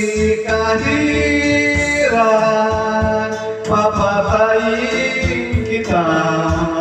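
Man singing a Tagalog ballad into a videoke microphone over a backing track, holding long notes that step down and up in pitch.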